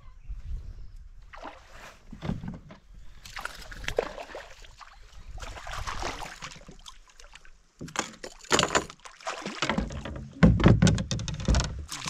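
Water splashing and sloshing as a hooked dourado thrashes at the surface beside a fishing kayak, with irregular knocks and bumps, loudest near the end.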